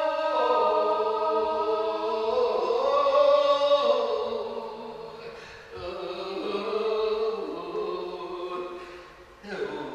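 Wordless singing in long held drone tones. The pitch steps to a new note every two seconds or so, dipping before new notes swell in, with a fresh note rising in just before the end.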